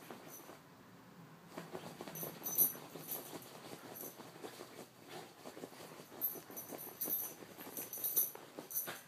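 A small dog digging at a bed's duvet with its front paws: rapid scratching and rustling of the fabric, with the metal on its collar jingling in spells.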